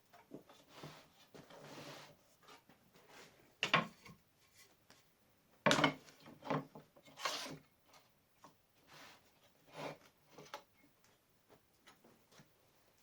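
Fittings being slid and set on the table saw's T-slot profile frame: a rubbing slide, then a few sharp knocks and lighter clicks as parts are placed and fixed.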